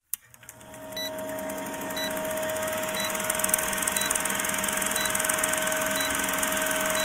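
Old film projector sound effect: a steady mechanical whir and rattle with hiss and a steady tone, fading in over the first second, with a short tick about once a second as the countdown runs.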